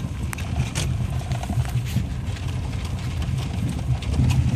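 Steady low rumble of a vehicle's engine and tyres, heard from inside the cab while driving, with a few light clicks and rattles.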